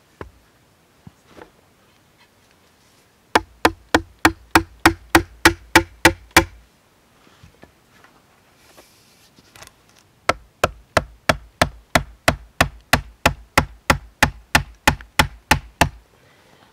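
A wooden mallet striking the top of a sharpened green-wood stake, driving it into the ground: a couple of single knocks, then two runs of fast, even strikes, about three a second, a dozen in the first run and around twenty in the second after a short pause. Each strike is a sharp knock with a brief hollow ring.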